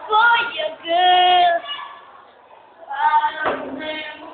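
A girl's voice singing a melody in held notes, breaking off about two seconds in and starting again a second later.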